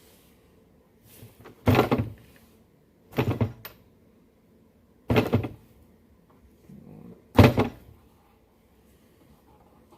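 Four short, loud handling noises about two seconds apart, from wire ends being stripped of their insulation by hand without wire strippers.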